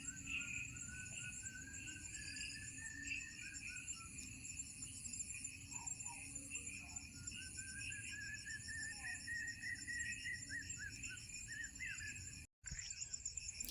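A night chorus of crickets and other insects: several high trills pulsing evenly at once, with a fainter wavering call below them. It drops out for a moment near the end.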